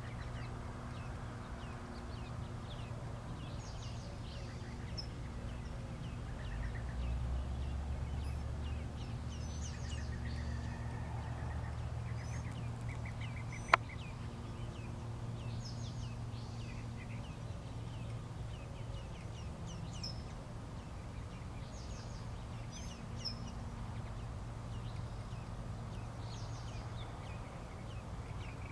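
Western bluebirds giving scattered short, high chirps over a steady low hum. A low rumble swells for several seconds in the first half, and a single sharp click sounds about halfway through.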